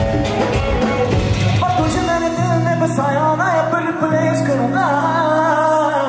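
Live band music with a male singer. A busy beat gives way about two seconds in to held low notes, over which the voice sings a line with slides and bends in pitch.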